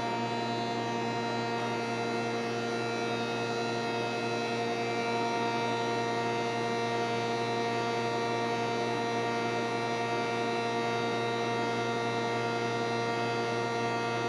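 Spindle shaper with its power feeder running: a steady, even machine hum made of several constant tones, with no change in pitch or level.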